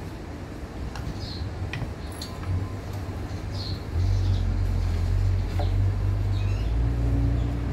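A steady low engine rumble sets in about four seconds in and becomes the loudest sound. Short high bird chirps come every second or two, and a few light metallic clicks of hand tools sound in the first half.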